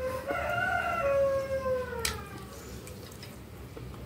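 A cat meowing once, a long drawn-out meow that wavers and then falls in pitch as it trails off after about two and a half seconds. A single sharp click about two seconds in.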